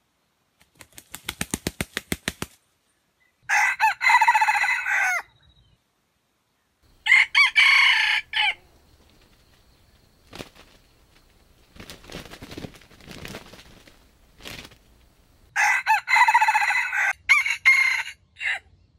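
Red junglefowl rooster crowing three times, each crow short and cut off sharply, after a quick run of wing flaps about a second in. Fainter rustling is heard between the second and third crows.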